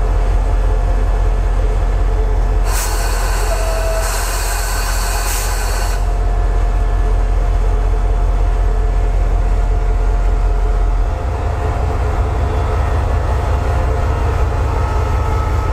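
SRT QSY-class diesel-electric locomotive idling at a standstill, a steady low pulsing engine rumble. From about three to six seconds in, a loud hiss of released air rides over it. Around eleven seconds in, the engine note shifts and drops slightly.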